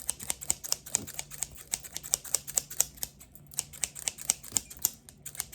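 Rapid, irregular sharp clicks and taps close to the microphone, several a second.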